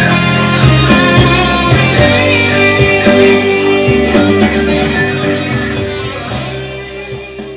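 Guitar-led rock music with no vocals, with electric guitar and a steady bass line, fading out over the last couple of seconds.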